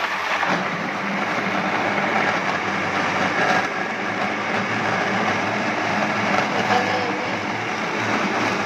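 Electric countertop blender running steadily at speed, liquidising raw green mango with water into juice.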